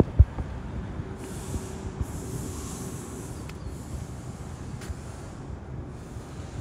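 Wind blowing across a handheld phone's microphone: a steady low rumble with rustling handling noise, and one sharp low thump just after the start.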